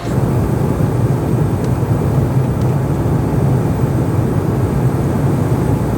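Jet airliner engines running with a steady, loud, low rumble.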